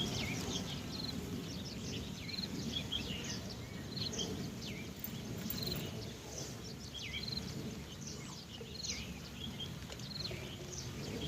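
Birds chirping: many short, quick calls, mostly falling in pitch, scattered throughout over a steady low outdoor rumble.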